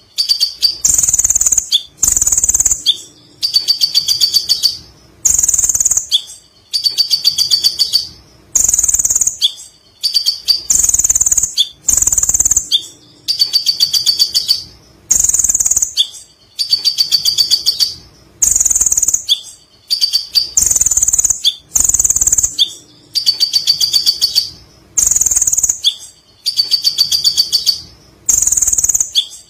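Kolibri ninja sunbird singing: loud, high-pitched chirping phrases repeated in a regular cycle about every two seconds, some broken into rapid chattering trills.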